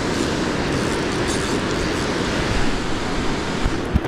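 Steady rush of river water pouring over a dam spillway, with two short low thumps of the camera being bumped near the end.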